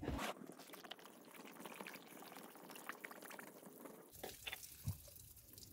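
Faint handling of half-gallon plant-milk cartons on a plastic folding table, with liquid moving and dripping, and a few light knocks about four to five seconds in.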